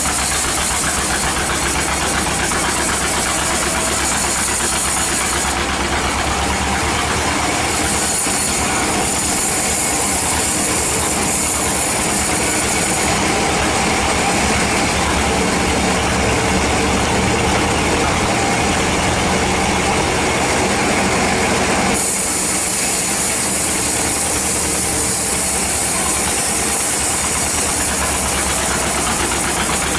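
Band sawmill running steadily, its blade cutting lengthwise through a teak log.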